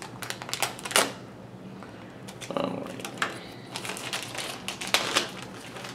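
Clear plastic wrapping crinkling and rustling as hands pull it off a bottle, with scattered sharp crackles, the loudest about a second in and near the end.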